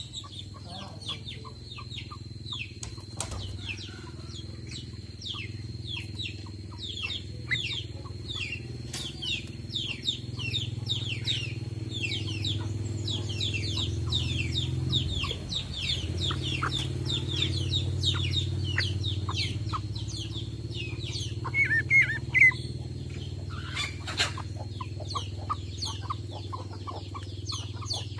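Green leafbird (cucak ijo) singing steadily, a rapid unbroken stream of quick downward-sliding notes with a few louder ones about three-quarters of the way through. A steady low hum runs beneath.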